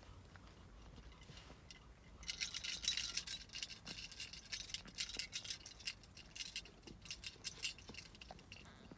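A rapid crinkling, crackling rustle, like handled plastic or paper, starting about two seconds in and lasting about six seconds.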